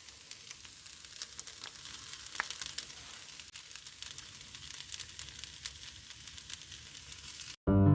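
Food sizzling in oil in a frying pan: a steady sizzle with scattered sharp crackles that cuts off suddenly near the end, where piano music starts.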